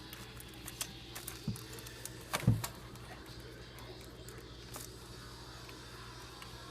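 Handling noise of a spark plug wire being fitted onto a distributor cap: scattered small clicks and rattles, with one louder knock about two and a half seconds in, over a steady low hum.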